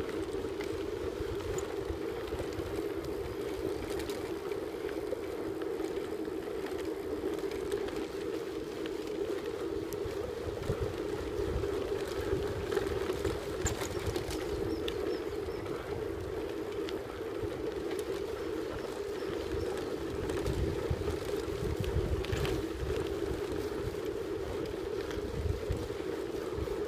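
Steady rolling hum of tyres running along a hard-packed forest track, with wind rumbling on the microphone.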